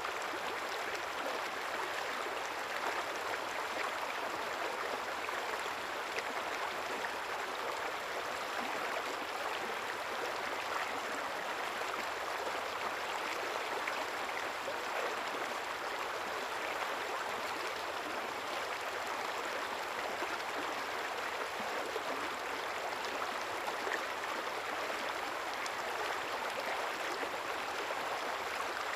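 River water flowing steadily: an even rush of rippling water with no single splash standing out.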